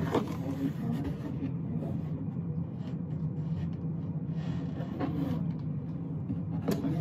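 Cardboard shipping box being torn open and handled, with faint scattered rustling and tearing over a steady low hum.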